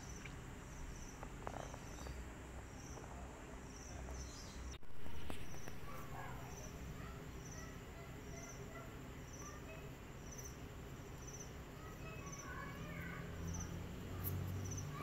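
A cricket chirping steadily: short, high, evenly spaced chirps, roughly one to two a second. There is a brief louder noise about five seconds in.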